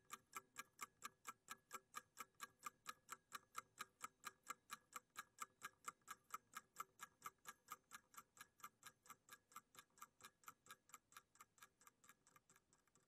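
Mechanical kitchen timer ticking steadily, about four quiet ticks a second, growing slightly fainter as it runs down.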